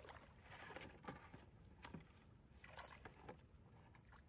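Faint splashing and sloshing of shallow muddy water as a man wades and moves about in it, with a few short splashes scattered through.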